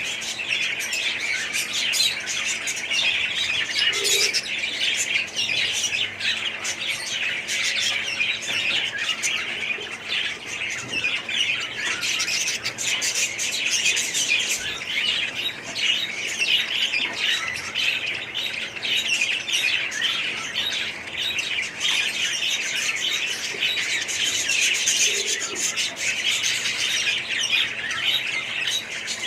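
Many budgies and other small parrots chattering, chirping and squawking all together in a dense, continuous din.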